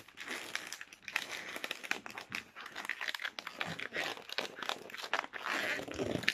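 Hands twisting an inflated latex modelling balloon: the rubber rubs and crackles in quick small clicks as a small bubble is twisted round on itself into an ear (pinch) twist.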